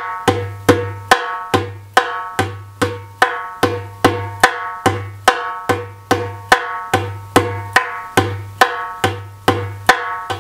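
Darbuka played in a steady, repeating rhythm of sharp tak strokes, about two to three a second, as a practice exercise. It alternates two kinds of tak: ringing strokes on the edge, rich in overtones, and duller strokes slightly inside the skin.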